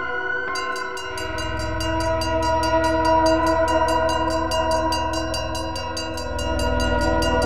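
Experimental soundtrack drone: several steady tones held as one chord, with a fast, even ticking laid over it, about six clicks a second, starting about half a second in. A low rumble swells beneath it about six seconds in.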